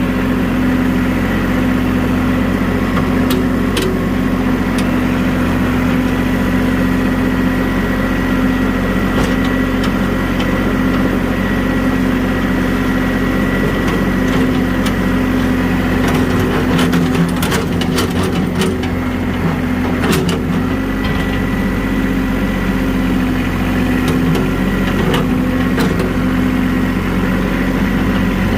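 Vehicle engine running steadily at low speed while slowly towing a skid steer on a chain, with a few sharp knocks a few seconds in and a cluster of them just past the middle.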